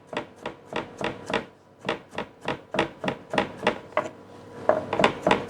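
A knife chopping fresh turmeric root finely on a chopping board: quick, even strikes about four a second, with two brief pauses.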